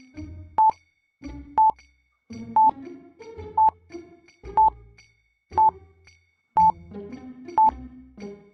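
Countdown stopwatch sound effect: a short, sharp beep about once a second, over quiet background music.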